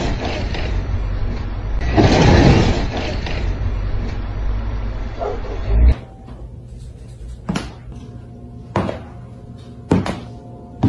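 A UPS delivery truck driving off, a loud rushing noise with a deep rumble that swells twice. Then, after a cut, a cat walks on a hardwood floor with one paw in a fuzzy slipper, and the slipper thuds on the boards a few times about a second apart.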